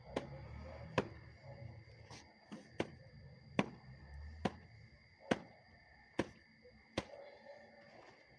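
Ridgid wet/dry vacuum filter being knocked, top end down, against a hard surface to shake the dust out: a string of sharp knocks about one a second.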